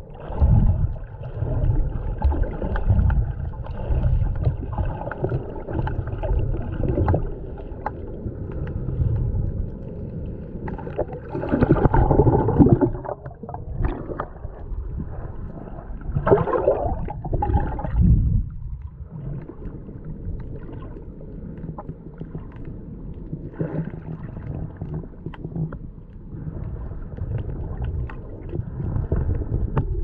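Muffled underwater sound from a camera held below the surface: a continuous low rumbling and sloshing of water stirred by a swimmer's movements, with louder surges about twelve seconds in and again around seventeen seconds.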